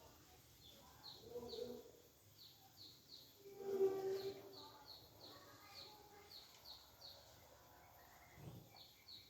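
Small birds chirping: a run of short, high, falling chirps, two or three a second, with a louder, lower pitched call about four seconds in.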